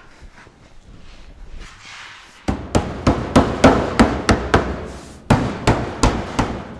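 Gloved hand slapping a welded-up metal fender skirt to knock it loose from the car body: after a couple of seconds of quieter scuffling, about a dozen sharp smacks at roughly three a second, with a brief pause partway through.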